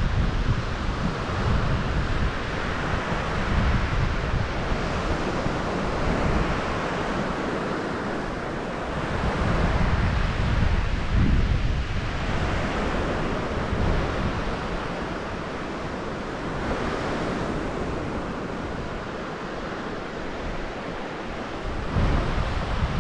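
Wind buffeting the microphone: a steady rushing hiss with gusty low rumbles that swell and fade, strongest at the start, about halfway through and near the end.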